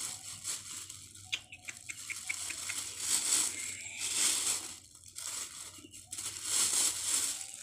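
Rustling and clicking handling noise as a scissor-arm microphone boom stand and its cable are handled and flexed, with a quick run of small clicks about a second and a half in.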